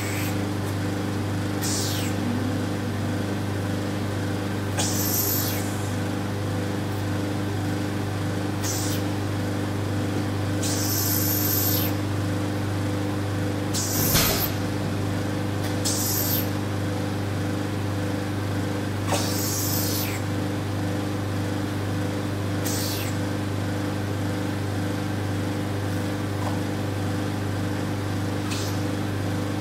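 Vacuum RF roller body-contouring machine running with a steady hum, with short airy hisses every few seconds as the suction handpiece works.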